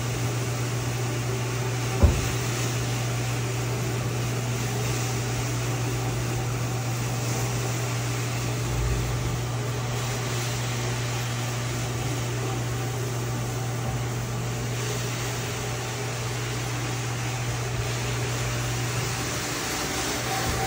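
Rug-cleaning machinery running steadily: a low motor hum under an even rushing hiss, with one sharp knock about two seconds in.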